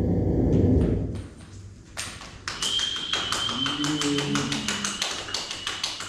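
Dense electronic noise-and-drone texture from oscillators and circuit-bent electronics dies away about a second in. From about two seconds, fast sharp claps from a few people follow, with a thin steady high electronic tone ringing under them.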